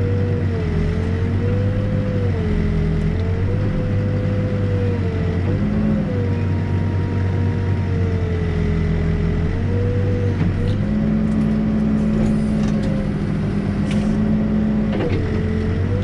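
Backhoe's diesel engine running steadily under digging load, heard from inside the cab. A hydraulic whine rises and falls in pitch as the boom and bucket work the trench.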